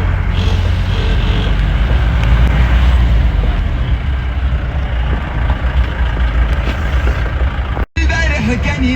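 Moving vehicle on a safari ride: a steady, loud engine and road rumble. Near the end the sound cuts out abruptly, and a song with singing comes in.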